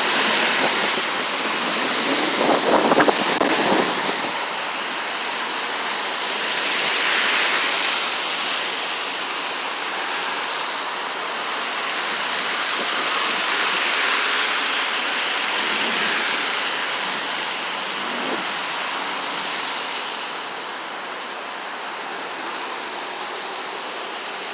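Steady rush of highway traffic, cars passing one after another so the tyre noise swells and fades every few seconds.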